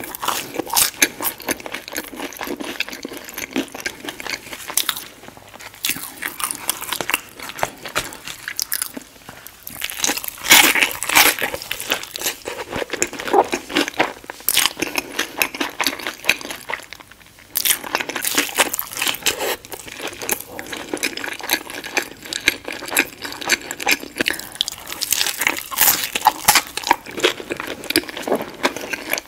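Close-miked chewing and crunching of crispy battered fried fish and thick-cut fries: a dense run of crackly bites and chews, with a brief pause a little past halfway.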